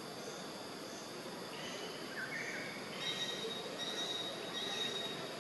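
Outdoor background of buzzing insects, with a thin, steady high-pitched drone that comes in a little past halfway and holds.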